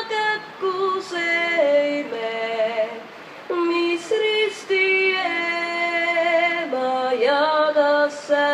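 A woman singing solo and unaccompanied, in long held notes that step up and down, some with a slight waver.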